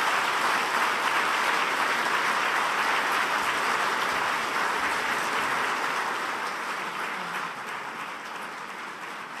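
An audience applauding: dense, steady clapping that gradually dies down over the last few seconds.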